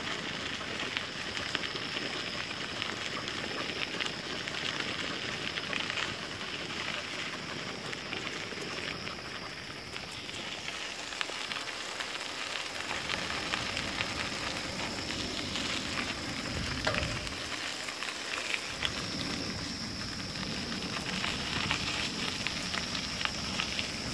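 Bicycle tyres rolling over a crushed-gravel trail: a steady crackling crunch, with a thin steady high tone over it.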